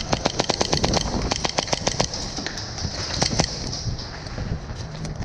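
Rapid airsoft gunfire: a quick, even string of shots, about eight a second, for the first two seconds, then a few more shots around three seconds in.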